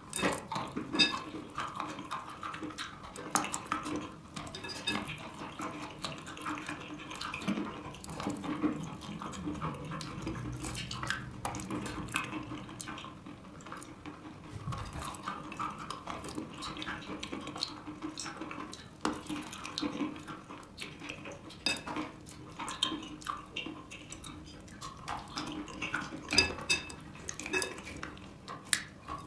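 Biting and chewing wet chalk: a continuous, irregular stream of sharp crunches and crackles as the soaked chalk breaks up.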